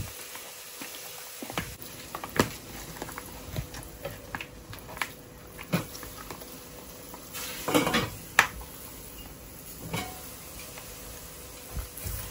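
A hand rubbing spice marinade into raw quail in a glass bowl: soft wet rubbing and squishing, with scattered knocks and clinks against the bowl. The loudest knocks come in a cluster about eight seconds in.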